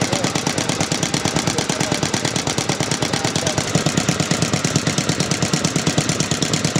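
Kubota Auto Engine type BZGR, a single-cylinder gasoline stationary engine with a horizontal radiator, running steadily with a rapid, even exhaust beat.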